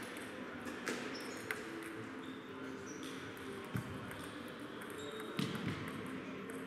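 Table tennis balls clicking off paddles and tables: a few scattered, irregular sharp clicks over a background murmur of distant voices.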